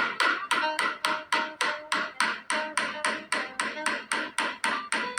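Rapid, even hammering of nails into wood using a rugged phone's screen as the hammer, about four to five strikes a second, over background music.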